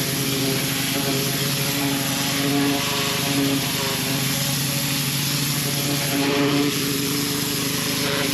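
Petrol-engine pressure washer running steadily, its engine tone under the broad hiss of the high-pressure water jet spraying wood.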